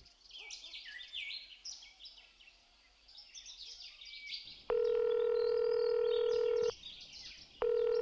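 Birds chirping and singing in woodland, then a telephone calling tone heard down the line: a steady buzzy tone about two seconds long starts halfway through, pauses for about a second, and starts again near the end.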